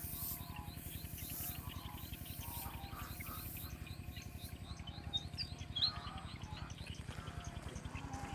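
Backyard chickens and ducks at feeding time, with repeated small chirps and two louder short calls about five and six seconds in, over a steady fast low pulsing.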